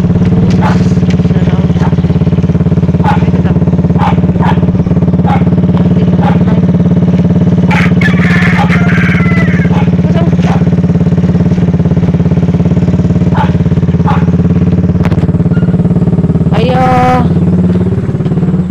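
A loud, steady engine drone at one unchanging pitch, like a small motorcycle-type engine running. Short sharp ticks and chirps sound over it, and a brief call rises and falls about halfway through and again near the end.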